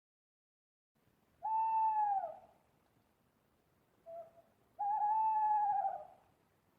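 Owl calling: two long calls of about a second each, the first falling in pitch as it ends, with a short faint note between them.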